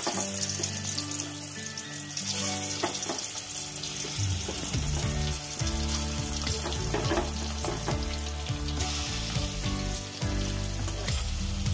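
Pieces of salt-and-turmeric-rubbed fish sizzling as they shallow-fry in hot oil in a kadai, with more pieces slid into the oil along the way. A steady hiss of frying runs under background music.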